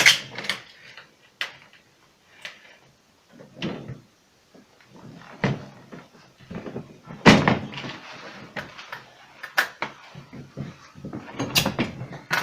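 Plastic cover panel of a refrigerator's interior being handled and pushed into place: a string of irregular knocks and clicks of plastic against plastic, the loudest about seven seconds in.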